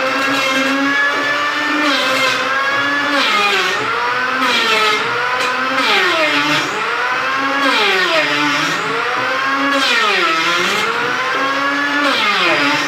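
Wood planer's motor running with the cutter head under load, its pitch sagging and climbing back every second or two as the wood is fed through.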